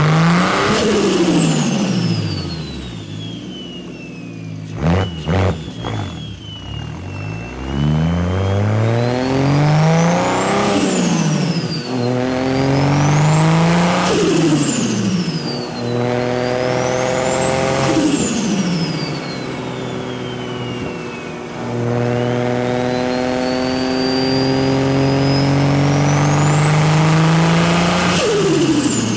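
BMW 335i's N54 inline-six, converted to a single turbo, revved up and down several times. A turbo whistle climbs with each rev and falls away as the throttle closes, with turbo flutter when the throttle is released and a short run of sharp chattering clicks about five seconds in.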